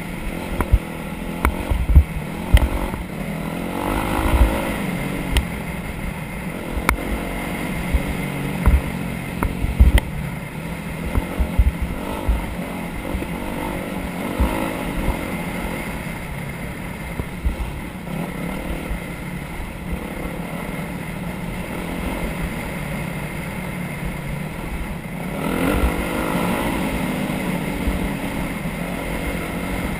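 Off-road vehicle engine running over a rough trail, with many sharp knocks and jolts. The engine picks up briefly about four seconds in and again near the end.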